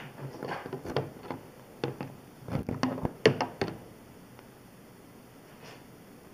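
Copper wire being pulled by hand out of its slit plastic insulation: irregular rustles and light knocks and clicks, stopping about four seconds in.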